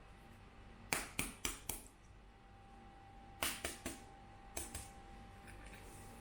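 Short runs of light, sharp taps in a quiet small room: four quick ones about a second in, three more at around three and a half seconds, and two near four and a half seconds. A faint steady high hum lies underneath.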